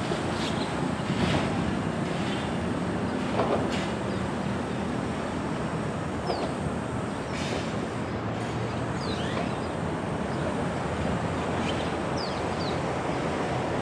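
A heavy KCS freight train rolling past, loaded with scrap and coke: a steady rumble of wheels on rail, with a diesel locomotive drone that fades after about five seconds and a few scattered clanks.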